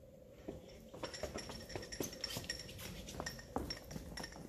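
Irregular light metallic clinking and jingling: many small clicks that start about a second in, over a faint high ringing.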